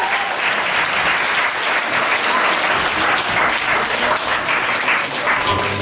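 Large audience applauding, many hands clapping in a dense, steady patter that thins out near the end.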